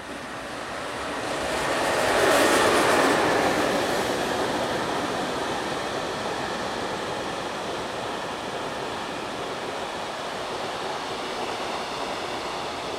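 High-speed container freight train passing through a station at speed: the noise builds and is loudest about two seconds in as the head of the train goes by, then settles into the steady running noise of container wagons rolling past.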